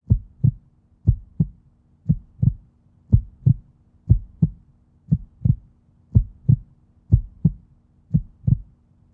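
Heartbeat sound: steady paired lub-dub thumps, about one beat a second, over a faint steady low hum.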